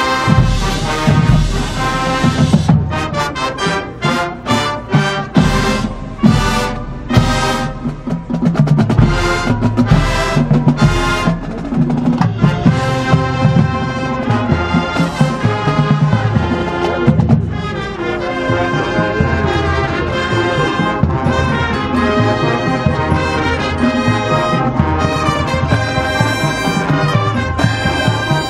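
High school marching band playing: brass and drumline, with a run of sharp accented ensemble hits through the first half, then sustained brass chords.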